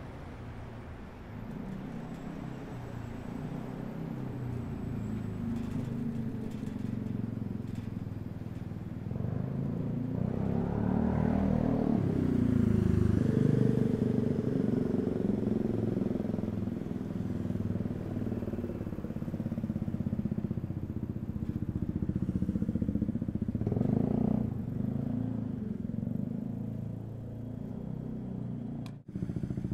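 City street traffic heard from a bicycle: motor vehicles pass close by over a steady road rumble, their engines swelling and fading, loudest a little under halfway through and again later on.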